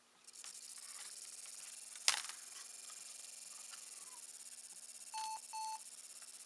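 ThinkPad T61 laptop powering up: its cooling fan starts with a steady high whirring hiss, a sharp click comes about two seconds in, and the laptop gives two short beeps about five seconds in.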